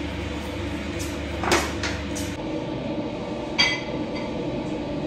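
Steady kitchen hum with china plates and utensils handled as roast meat is served out: a short scraping clatter about a second and a half in, and a sharp ringing clink of a plate about two seconds later.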